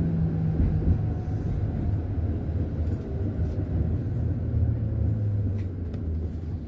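Konstal 105Na tram heard from inside the car while moving slowly: a steady low rumble from the running gear, with a faint gear-transmission whine falling slowly in pitch as the tram slows.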